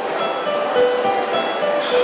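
Yamaha electronic keyboard playing a melody of held notes.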